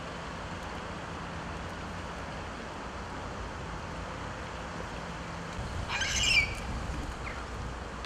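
Steady outdoor hiss with wind rumble on the microphone, and a single short, high-pitched squawk about six seconds in.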